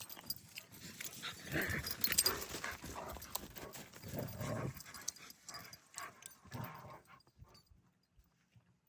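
Dog making short, soft vocal sounds among scattered clicks and rustling, which die away about seven seconds in.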